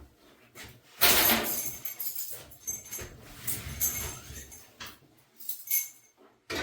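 Sheet-metal clattering and scraping from the washer's cabinet being handled and opened, loudest about a second in, then a string of shorter knocks and scrapes with light metallic jingling.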